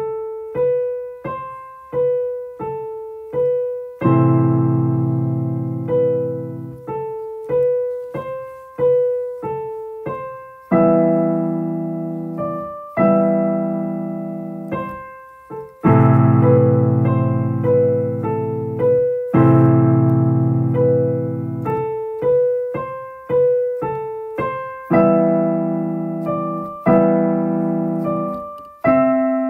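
Solo piano music: a melody of single notes, about one a second, each struck and dying away, over fuller chords that come in every few seconds.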